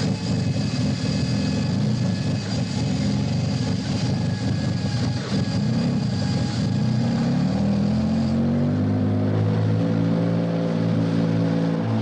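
Ford Cosworth 1.5-litre twin-turbo V6 in a Formula One car running just after starting, first rough and uneven, then about eight seconds in the revs rise and it settles into a steadier, even idle.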